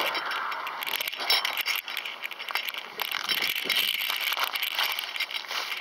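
Handling noise: clothing rubbing and scraping against a phone's microphone as it is carried, with irregular crackles and clicks.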